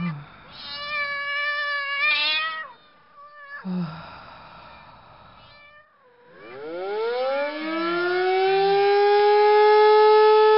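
A cat meowing, a long wavering call, followed from about six seconds in by a civil-defense siren winding up in pitch and settling into a steady loud wail.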